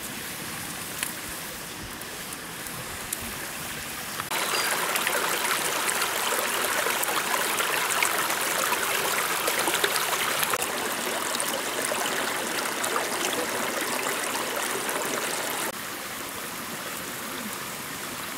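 Shallow stream running over rock ledges: a steady rush of water that gets suddenly louder about four seconds in and drops back down near the end.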